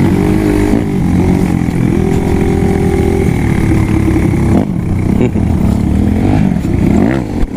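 Trail bike engine revving up and down, its pitch rising and falling as the throttle is opened and closed.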